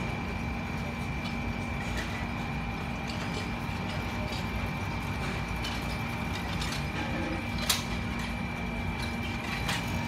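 Outdoor air-conditioner condenser running with a steady hum from its fan and compressor, over a low rumble. A single sharp click about eight seconds in.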